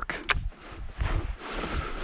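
A fishing reel winding a topwater lure in to the kayak and lifting it off the water: a click just after the start, then a soft, steady hiss of winding and water.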